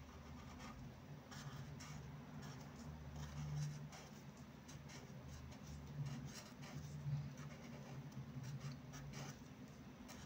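Felt-tip marker nib drawn across paper in slow calligraphy strokes, a faint irregular scratching as each letter is formed, over a low steady hum.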